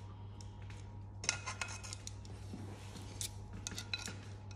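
Metal kitchen tongs clicking as they snap shut on asparagus spears and tap the rim of a non-stick frying pan. Light metallic clicks come in two bunches, one about a second in and another past the middle.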